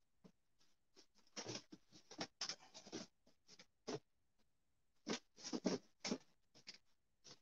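Faint, irregular rustling and scraping in short bursts with pauses, as the fabric wall of a folding bathtub is worked onto its frame by hand.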